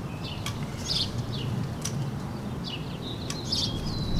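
Birds chirping in the background: scattered short chirps and brief held whistled notes, over a steady low rumble, with a few faint clicks.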